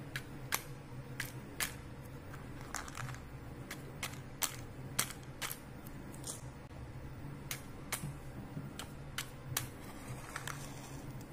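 Matchbox being handled and a match struck against it: irregular sharp clicks and scratches, about two a second, over a faint steady low hum.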